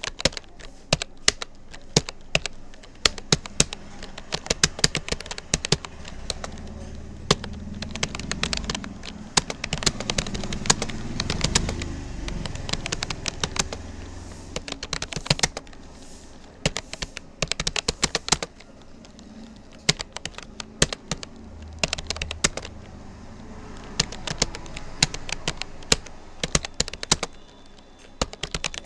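Typing on a Rapoo computer keyboard: fast, irregular key clicks in runs, broken by short pauses. A low rumble rises in the background at times.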